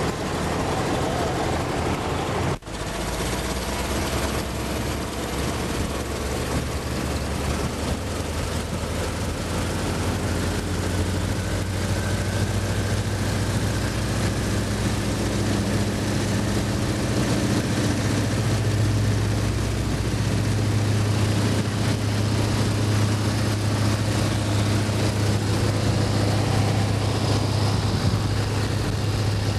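New Standard biplane's radial engine and propeller running steadily, heard from the open cockpit with wind rush over the microphone. The engine drone grows stronger about two-thirds of the way through as the plane leaves the ground and climbs. There is a momentary gap in the sound about two and a half seconds in.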